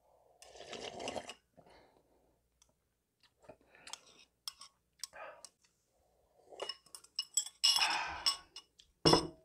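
Metal chopsticks clicking and scraping against a ceramic bowl as the last of the ramen is scooped out. There are scattered sharp clicks, two short noisier stretches and one sharp knock near the end, the loudest sound.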